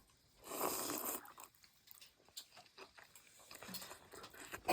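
A person eating noodle soup: one loud breathy slurp about half a second in, lasting well under a second, then soft chewing and small clicks.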